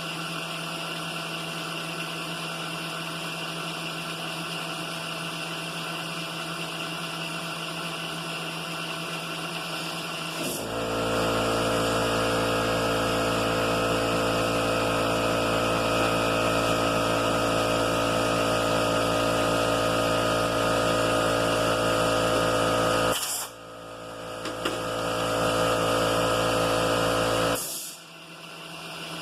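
Milling machine running steadily while a boring head takes the final cut. About ten seconds in a louder motor hum with a strong low tone joins; it cuts out after about thirteen seconds, builds back up, and stops about a second before the end.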